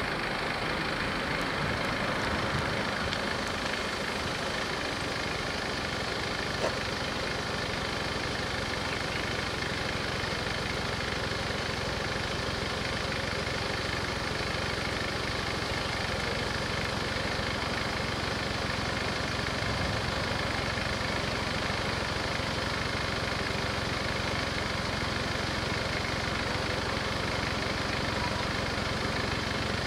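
Level-crossing warning bells ringing steadily while the barriers are down, over the low, steady sound of waiting road traffic with engines idling.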